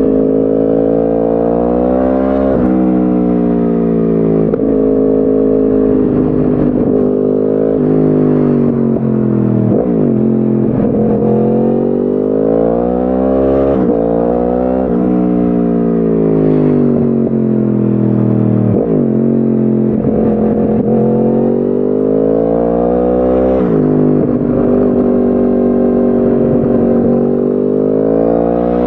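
2010 Yamaha R1's crossplane 'big bang' inline-four through a decatted Akrapovic exhaust, heard onboard: the engine note climbs through the revs and falls back again several times, with sudden drops in pitch at about four points as it rides.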